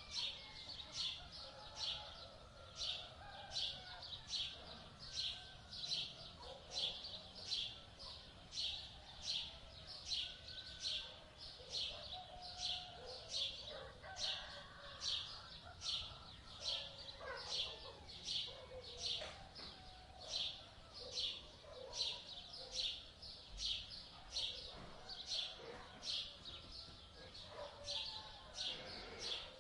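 Birdsong ambience: one bird repeats a short, high, sharp chirp very evenly, about three times every two seconds, over softer, lower calls from other birds.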